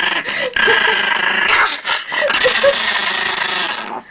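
A dog growling and yipping over steady noise, with a few short calls about halfway through.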